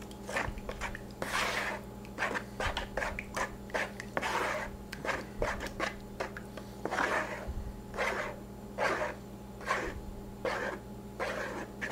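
Wooden spoon stirring a thin tomato-juice hot sauce in a mixing bowl: repeated scraping, sloshing strokes against the bowl, roughly two a second.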